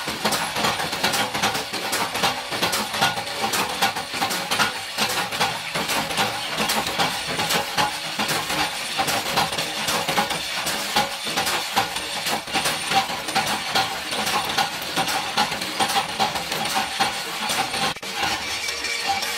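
Screw-shell threading machine running, with rapid, continuous metallic clattering and clinking as small metal shells feed through it.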